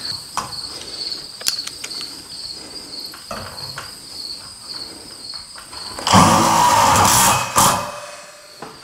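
Cordless power driver running in a burst of about a second and a half, then briefly again, driving a self-tapping screw into the top of a garage door. Crickets chirp steadily throughout, with a few light handling clicks earlier on.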